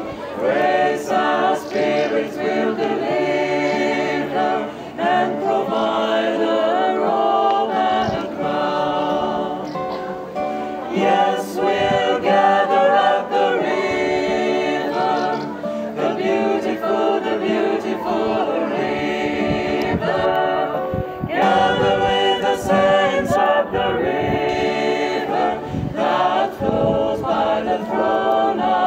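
Small mixed choir of men's and women's voices singing together in several parts, in phrases with short breaks between them.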